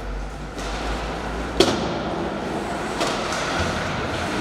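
Ice hockey play: a sharp crack about a second and a half in and a lighter knock about three seconds in, over the steady hubbub of the rink.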